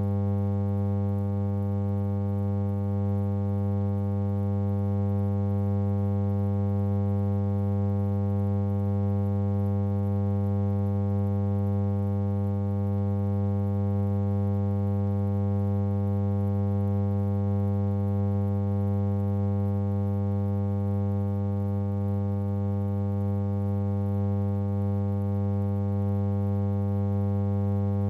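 Steady electrical hum, a low buzz with a ladder of even overtones that never changes in pitch or level. It is the only sound on an otherwise empty newsreel soundtrack.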